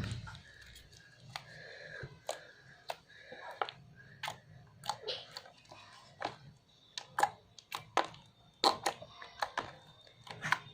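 Fluffy slime (glue, shaving foam and borax activator) being stretched and squished by hand, giving off many irregular sticky clicks and pops that come thicker in the second half.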